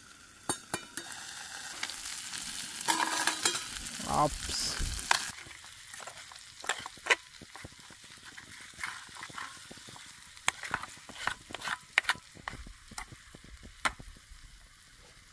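Chicken pieces sizzling in a steel frying pan on a portable gas camping stove, louder for the first few seconds. A fork scrapes and clicks against the pan as the pieces are turned.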